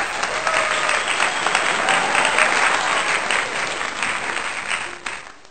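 Applause from a crowd, a dense run of many hand claps, dying away near the end.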